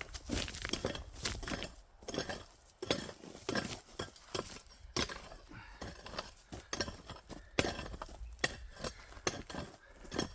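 Irregular clinks and crunches of loose rock underfoot, as of someone walking over a rocky mine tailing pile, with sharp knocks at uneven intervals.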